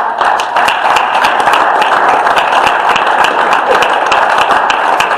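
Audience applauding: many hands clapping steadily and loudly.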